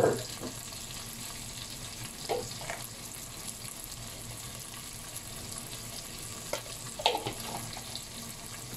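Prawns and vegetables sizzling steadily in a pan, with a few short knocks, likely a utensil against the pan, about two seconds in and again near seven seconds.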